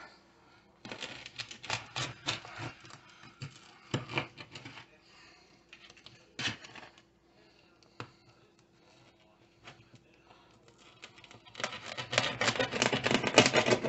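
Pizza cutter wheel rolling through a crispy crust and scraping on a metal baking sheet: bursts of crackly, clicking scrapes, densest and loudest near the end.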